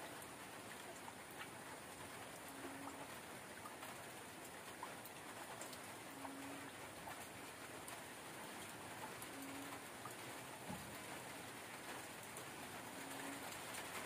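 Light rain falling steadily, an even hiss with scattered ticks of drops. A short low hoot repeats four times, about every three to four seconds.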